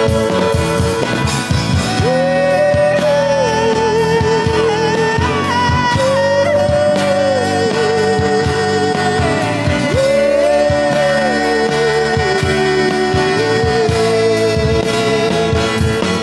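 Live acoustic rock band: a woman singing long, held notes with vibrato over two acoustic guitars, bass guitar and a drum kit. Her phrases rise to a held note and fall back again roughly every four seconds.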